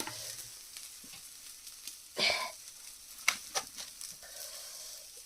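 Chicken legs sizzling over a charcoal fire, a faint steady sizzle with a few sharp crackles and pops about two and three seconds in.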